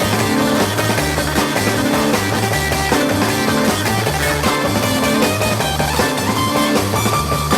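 A 1960s Japanese group-sounds rock band playing live: an instrumental passage of electric guitar over a steady, repeating bass line.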